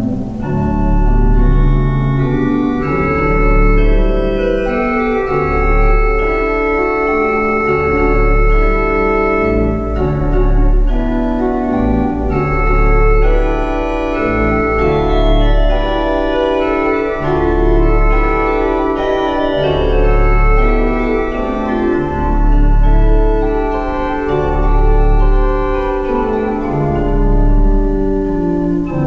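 Organ playing a postlude: sustained chords and moving upper lines over deep pedal bass notes that sound about once every two seconds.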